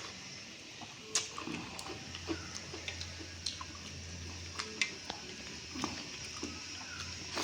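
Close eating sounds of someone eating dahi pakhala (watery fermented rice with curd) and side dishes: irregular wet smacks, slurps and chewing clicks. A low steady hum sits under them from about two seconds in until near the end.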